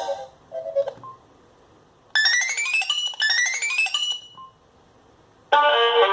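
Alcatel OT-757 mobile phone ringtones playing. A quick rising run of high electronic notes sounds twice in a row, and after a short pause a fuller tune with several notes at once starts near the end.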